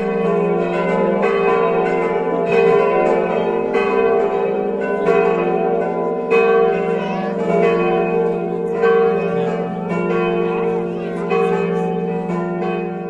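Church bells pealing: several bells of different pitch ringing together, with fresh strikes overlapping roughly once a second.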